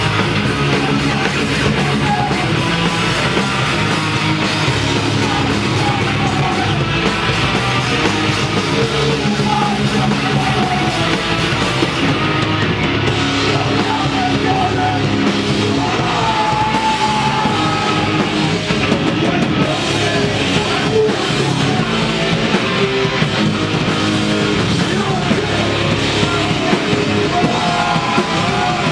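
Rock band playing live at full volume: electric guitar and drum kit running without a break, with shouted vocals over them.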